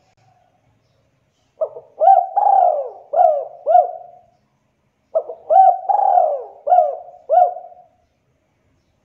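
Spotted dove cooing: two phrases of about five notes each. Each phrase opens with a short note, then runs into arching coos, the third drawn out longer than the rest.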